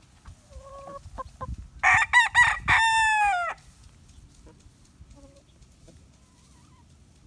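A rooster crowing once: a few quick broken notes running into a long held final note that drops in pitch as it ends. A few soft short clucks come just before the crow.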